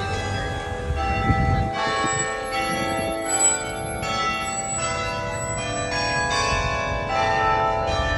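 Tower bells ringing, struck one after another in quick succession so that their ringing tones overlap. A brief low rumble comes a little over a second in.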